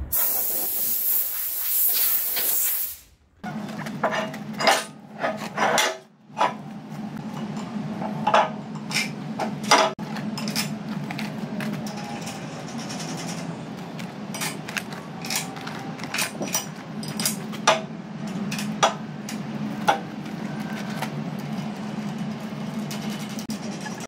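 Steel knocks and clanks as a heavy bulldozer corner tip (end bit) is handled and fitted against the blade's steel corner, over a steady machine hum. A loud hiss in the first three seconds cuts off suddenly.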